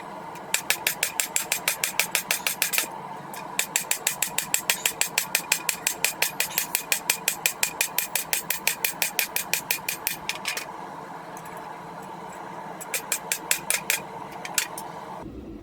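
Rapid, evenly spaced hammer blows on a hot rail-spike blade, flattening it, in three runs with short pauses between them. A steady mechanical hum runs underneath and cuts off shortly before the end.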